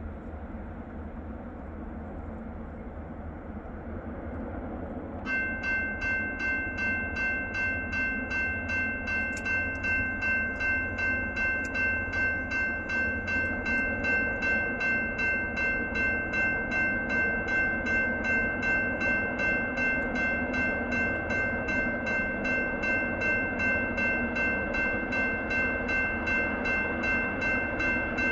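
Railroad grade-crossing warning bell starts about five seconds in and rings in a steady rhythm of about two strokes a second, the signal that the crossing has been activated for an approaching train. Before it, a low steady rumble.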